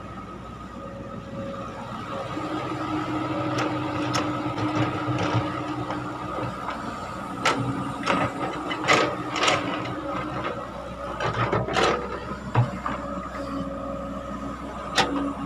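Caterpillar hydraulic excavator running as it digs, a steady engine note with a held whine that grows louder about two seconds in. Several sharp knocks and clanks come in the middle stretch, and one more near the end.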